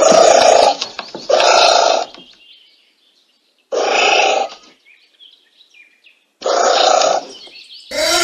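Anteater calls: five loud, short calls, each under a second and a few seconds apart, the last one with a pitch that rises and then falls.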